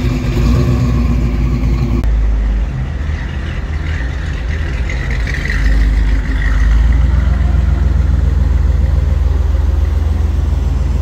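Classic car engines idling. First comes a steady idle. After a cut about two seconds in, a deeper, pulsing exhaust idle comes from a Chevrolet Bel Air's dual tailpipes.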